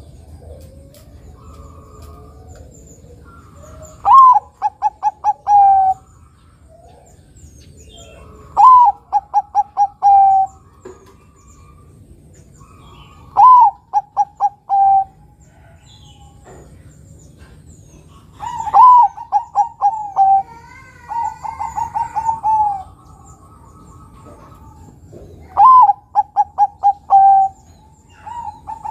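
Thai-bred 'Bangkok' zebra dove (perkutut) cooing: five loud song phrases, each a higher opening note followed by a quick run of short staccato coos that drop slightly in pitch, with a final phrase starting near the end.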